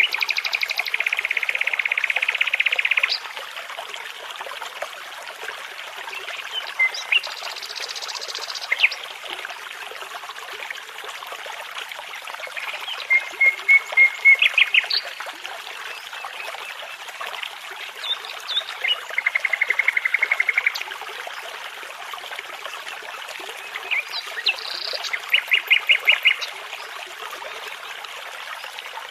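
Nightingale singing in separate short phrases with pauses between them: buzzy trills and runs of rapid repeated notes. A babbling brook runs steadily underneath.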